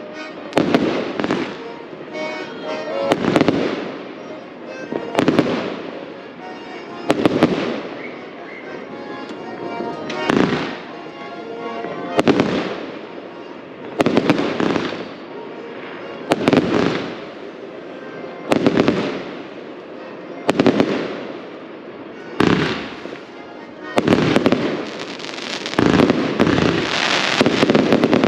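Consumer firework battery firing shot after shot, each a sharp bang with a trailing crackle, roughly one every two seconds, thickening into a denser volley near the end.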